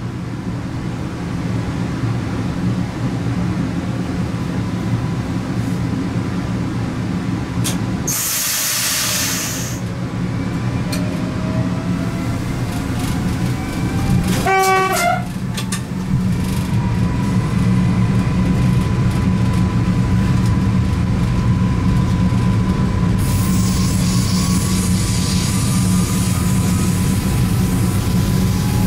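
Stadler FLIRT electric multiple unit on the move, heard in the driver's cab: a steady rumble of wheels on track with electric traction whine rising in pitch as the train gathers speed. A brief hiss about eight seconds in, and a short horn blast about halfway through.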